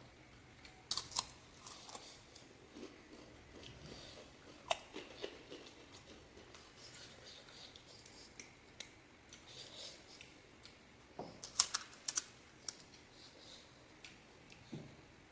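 Scattered crisp cracks and crunches of panipuri, the hollow fried puri shells, being bitten and chewed, with a few sharp clicks. There is a pair about a second in, a single one midway, and a quick cluster near the end.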